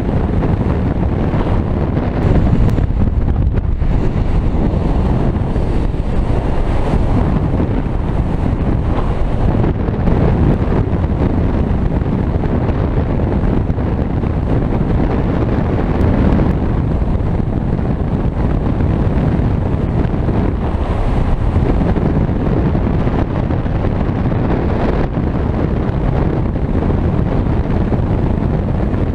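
Loud, steady wind rushing over a GoPro action camera's microphone as a speedflying wing flies fast through the air.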